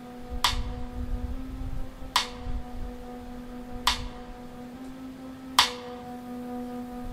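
Quiet opening of a music track played through a Bose L1 Pro 8 column speaker and F1 subwoofer: a sharp tick about every second and three quarters over a held low tone.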